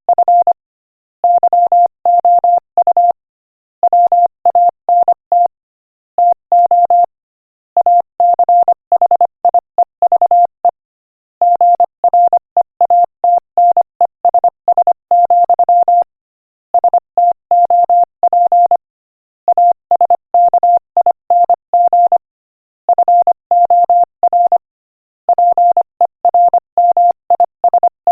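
Morse code sent at 25 words per minute as a single steady electronic tone, keyed on and off in rapid short and long beeps. The beeps come in runs of one to four seconds, with brief silences between the words.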